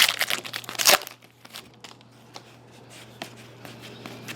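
Foil trading-card pack wrapper crinkling and tearing for about the first second, then quieter card handling with a few light clicks over a steady low electrical hum.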